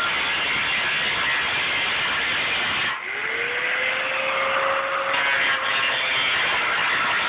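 Electric angle grinder with an abrasive cut-off disc cutting through a steel tank, a loud, steady grinding hiss. About three seconds in the disc briefly comes off the cut, and the motor's whine rises as it speeds up before it bites into the steel again.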